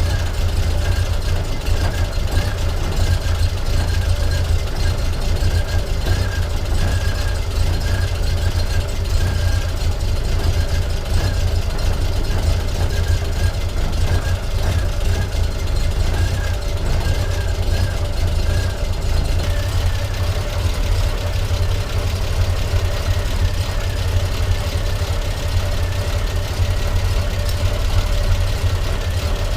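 Triumph TR5's 2.5-litre straight-six engine idling steadily.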